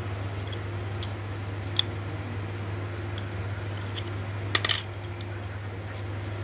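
Steel gear parts of a dismantled car gearbox clinking as they are handled: a single clink about two seconds in, then a quick cluster of louder, ringing metal clinks a little past halfway. A steady low hum lies underneath.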